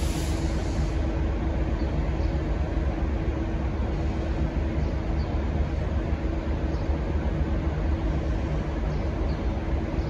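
V/Line N class diesel-electric locomotive's EMD V12 two-stroke diesel idling at a standstill: a steady low rumble with a constant hum.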